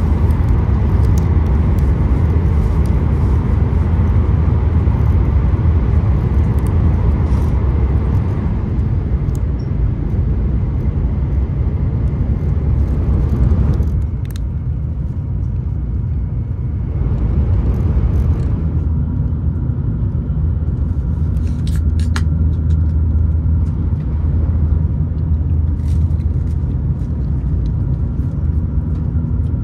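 Steady low rumble and hiss of a Shinkansen bullet train's passenger cabin while the train is running. The noise thins for a few seconds about halfway through, then returns, with a few faint clicks in the second half.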